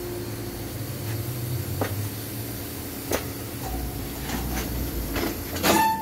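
Tyre-shop work noise: a steady low hum with a few sharp knocks and clicks, the loudest cluster near the end.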